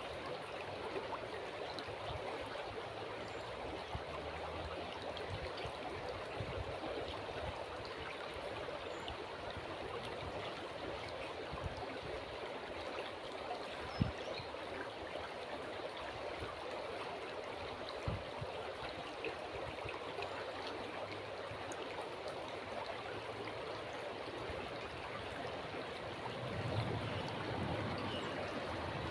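River water flowing in a steady, even rush. There are two brief knocks about halfway through and a low rumble near the end.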